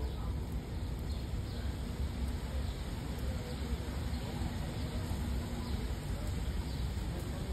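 Steady ambient noise: an even hiss over a strong low rumble.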